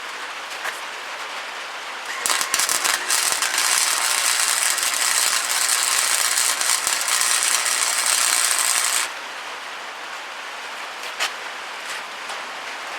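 Grinder grinding down welds on new steel sheet metal: a loud, even hiss that starts about two seconds in and cuts off about seven seconds later, with steady rain hiss underneath.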